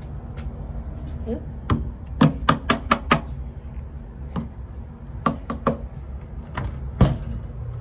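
Plastic action figure knocking against a wooden door in sharp taps: a quick run of about five, then three more a couple of seconds later, with a few single taps around them.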